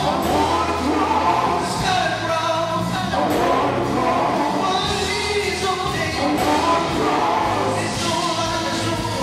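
Male gospel vocal group singing live, a lead voice with backing singers, over a band of electric guitar, drums and keyboard.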